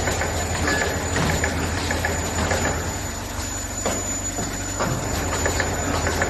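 Compressed non-woven towel making machine running: a steady mechanical hum with a thin high whine, broken by clacks and knocks from its press and cutting mechanism about once a second.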